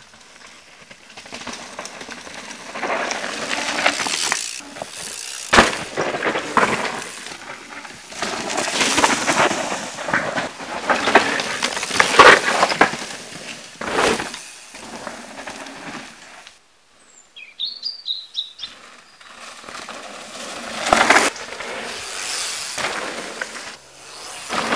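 Enduro mountain bike riding fast down a dry dirt and rock trail: knobby tyres skidding and crunching on dirt, with sharp knocks and rattles as it hits bumps, swelling up as it passes by three times. In a quiet gap about two-thirds of the way through, a bird chirps briefly.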